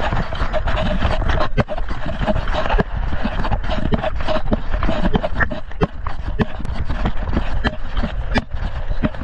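Armoured vehicle on the move: a steady low rumble with frequent, irregular knocks and rattles close to the microphone.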